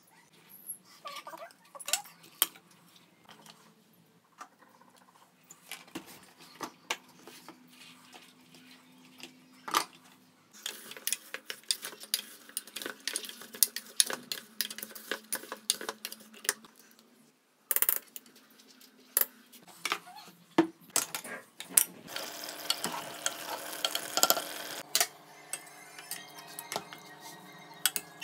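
Kitchen handling in a stainless steel pot: a spoon stirring and scraping onions, spices and chicken, with repeated knocks and clinks of utensils against the pot's metal sides.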